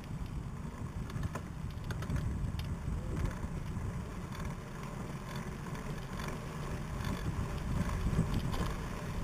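Low rumble of wind buffeting the microphone and tyres rolling on tarmac from a recumbent trike riding at race speed, with scattered light clicks.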